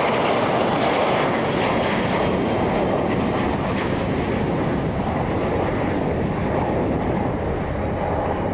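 Airbus A320 jet airliner's engines running at high power on departure: a loud, steady engine noise that eases off slightly near the end.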